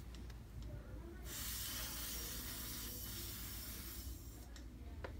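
Can of compressed air duster spraying in one continuous hiss lasting about three seconds, starting about a second in.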